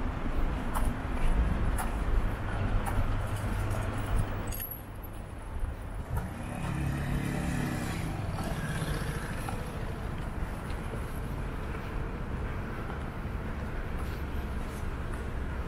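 City street ambience along a busy pedestrian shopping street: a low rumble of traffic, loudest in the first few seconds, under a steady general hum of the street.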